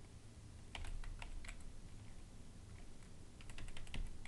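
Keys tapped on a computer keyboard, typing a username into a login field: a short run of keystrokes about a second in, a pause, then another run near the end.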